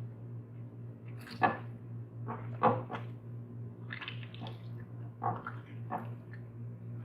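Hands kneading soft yeast dough with oil worked in: irregular short wet squelches and slaps, roughly a second apart.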